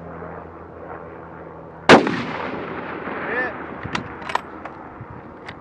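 A single shot from a Remington 700 bolt-action rifle about two seconds in, sharp and loud with a short echoing tail, fired at a steel target about 390 yards off. A few faint clicks follow.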